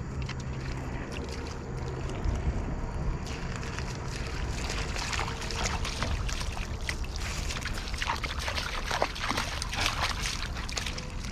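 Water sloshing and splashing at a river's edge, a dense run of short splashes that grows busier from about halfway through, over a steady low rumble.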